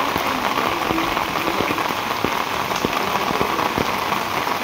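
Rain falling steadily onto standing floodwater, a dense patter of drops splashing on the water's surface.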